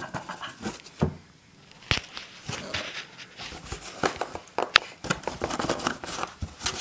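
A West Highland White Terrier scuffling about in its dog house: scattered scratches, knocks and sharp clicks as it moves and works at something.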